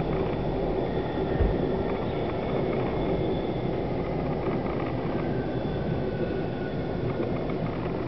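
A regional express train running at speed, heard from inside the carriage: a steady rumble of wheels and running gear with faint steady whining tones above it, and a brief low bump about one and a half seconds in.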